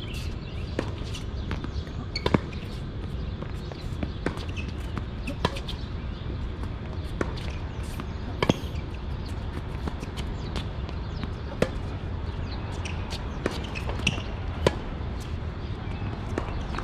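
Tennis ball being struck by rackets and bouncing on the court: sharp, irregular knocks about once a second over a steady low rumble.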